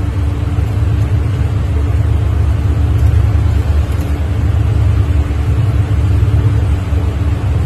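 Ambience on the deck of a ship at sea: a loud, fluttering low rumble of wind on the microphone and ship noise, with an even hiss and one steady low hum over it.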